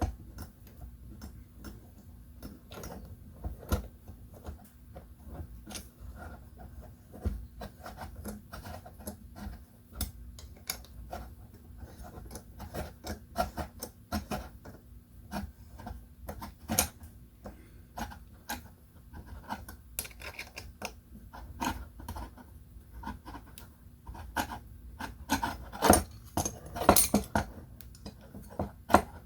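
Irregular small clicks and rubbing from tightening screws and handling the parts while the Delrin arms are fitted to a camera and light mount, with a few louder clicks near the end.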